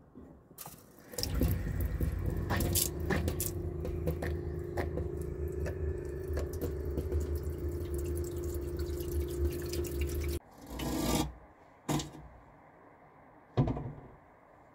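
Water running from a camper's kitchen tap into a stainless steel sink over a steady low hum; the flow stops abruptly about ten seconds in. A short rush of noise, a click and a sharp knock follow, the knock the loudest sound.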